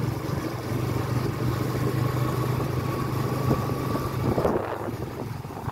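Motorcycle engine running at a steady pace while riding, under a rush of wind and road noise. The wind noise lessens about four and a half seconds in.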